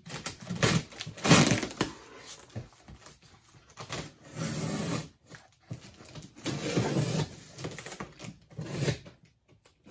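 Cardboard shipping box being cut open and its flaps pulled apart by hand: irregular scraping, tearing and rustling of cardboard and packing paper in several bursts with short pauses.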